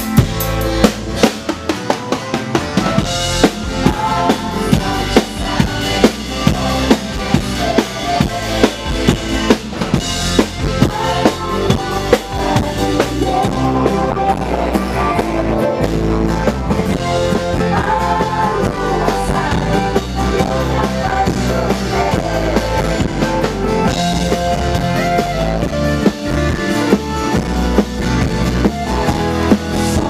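Live band playing on stage during a soundcheck: a drum kit keeping a steady beat under accordion, keyboard and guitar.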